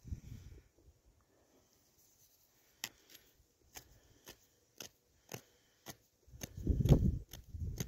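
Old patina-covered coin being rubbed and handled between thumb and fingers: a run of short, scratchy clicks about twice a second. A louder low rumble of handling noise comes about six seconds in.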